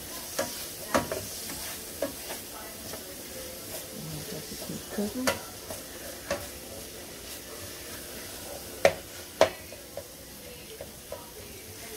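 Sliced turkey smoked sausage and vegetables sizzling in a frying pan while a spatula stirs them, scraping and knocking against the pan. Two sharp knocks of the spatula on the pan about three-quarters of the way in, about half a second apart, are the loudest sounds.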